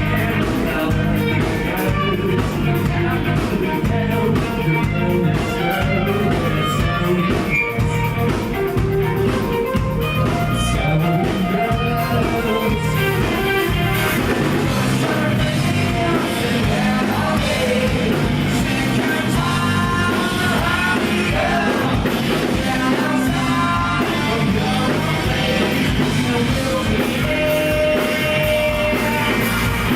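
Rock band playing live, with singing over guitar and drums.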